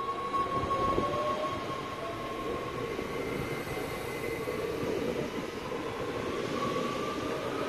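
NS Sprinter Lighttrain (SLT) electric multiple unit pulling away and accelerating: its traction drive whines in rising tones over the steady rumble of wheels on rail.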